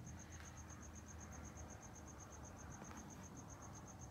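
A cricket chirping steadily in a rapid, even, high-pitched rhythm over a faint low background hum.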